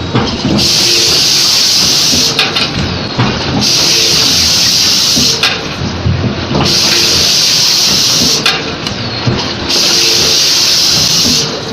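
Automatic forging line with a mechanical forging press working in a steady cycle: a loud, high-pitched hiss that breaks off for about a second roughly every three seconds, and in each break a couple of sharp metallic knocks as the press and manipulator work the parts.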